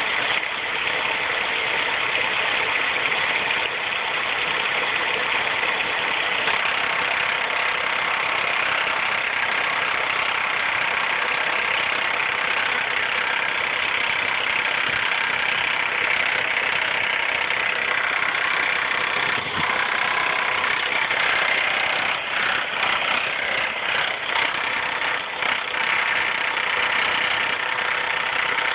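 2004 Mazda 3's 2.3-litre four-cylinder engine running with a loud, annoying timing chain racket, the noise the owner puts down to the timing chain. The sound is steady, with a few brief uneven dips in loudness in the last third.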